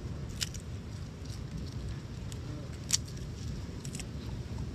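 A few light clicks and taps as a kitchen knife and a plastic spice jar are handled, the sharpest about three seconds in, over a steady low rumble.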